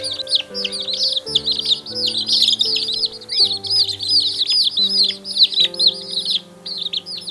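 Many small birds chirping constantly, their short calls overlapping, over background music of slow held notes.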